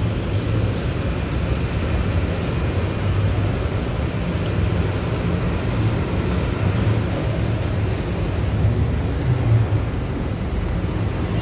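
Steady rumble of road traffic, with a few faint clicks.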